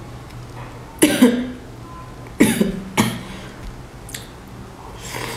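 A woman coughing briefly three times: once about a second in, then twice more close together about a second and a half later.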